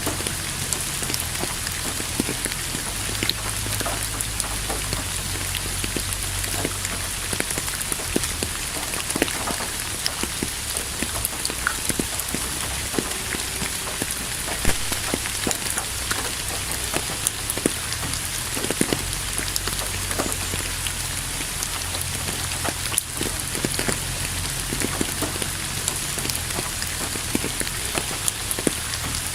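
Steady rain falling, an even hiss with many separate drops ticking close by, over a low uneven rumble.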